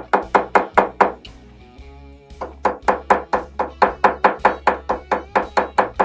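Ball-peen hammer tapping quickly on a soft brass carabiner fitting clamped in a steel vise, about five light metallic blows a second, with a break of about a second near the start before the tapping resumes. The blows peen the head of the holding piece around its perimeter to spread it so the carabiner stops slipping out.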